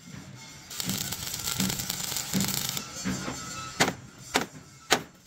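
Stick welding on a steel truck chassis rail, a steady crackling hiss for about two seconds. After it stops come three sharp hammer strikes on the steel, about half a second apart.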